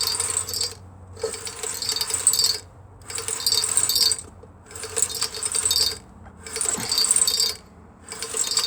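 A hand tool worked in repeated strokes on a Briggs & Stratton lawnmower engine, a gritty metallic rasp about once a second, seven strokes in all, each under a second long.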